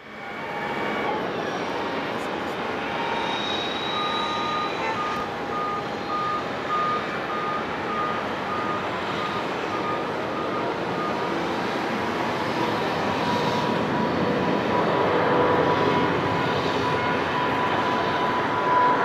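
Jet engine noise from a Boeing 777-200's two turbofan engines as the airliner lines up and starts its takeoff roll. It is a steady, dense noise that fades in at the start and slowly grows louder, with a steady whine coming up in the second half.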